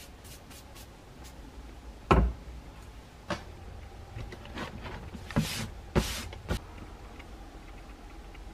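Handling sounds of a cardboard model-kit box on a workbench: several dull knocks as it is picked up and set down, the loudest about two seconds in, with a brief scrape around five to six seconds in.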